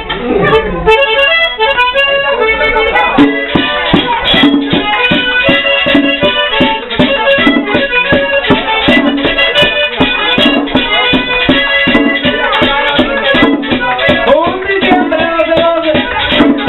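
Live merengue típico played by an accordion-led conjunto: the accordion opens the tune, and the rhythm section comes in with a steady driving beat about three seconds in.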